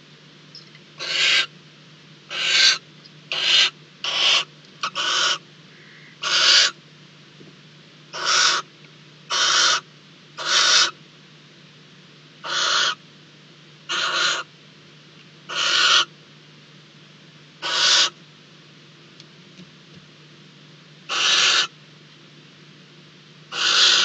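Barn owl giving a series of about fifteen short, harsh hissing calls, irregularly spaced one to three seconds apart, over a faint steady low hum.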